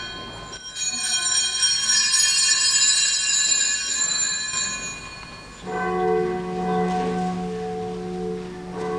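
Altar bells ringing with many high, clear tones that die away over a few seconds, as rung by kneeling servers during the Eucharistic prayer of the Mass. Just past halfway a steady held organ chord sets in.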